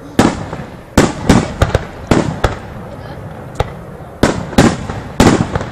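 Aerial firework shells bursting, about a dozen sharp bangs at irregular intervals, each trailing off in an echo.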